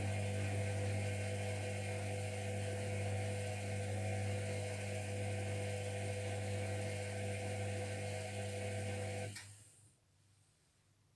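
Zerowatt/Hoover Performa 1000 washing machine running mid-wash, a steady motor hum with a low drone and hiss, which cuts off abruptly about nine seconds in as the drum stops.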